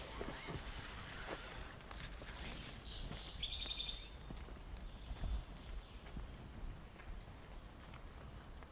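Footsteps on a wet forest path with birds calling: a short trilled call about three and a half seconds in and a brief high chirp later on.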